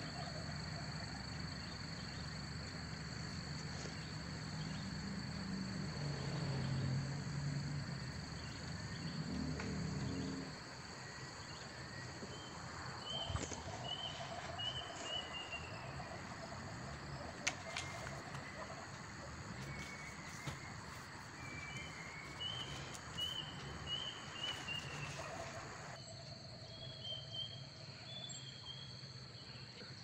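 Crickets trilling steadily at a high pitch, with short runs of four or five bird-like chirps near the middle and again later. A lower, louder sound sits under them for the first third.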